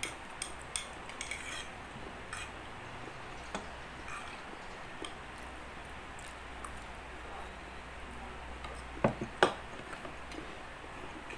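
Metal forks clinking and scraping on small plates as two people eat spaghetti, a run of light clicks at first, then sparse ticks, with two louder, sharp knocks about nine seconds in.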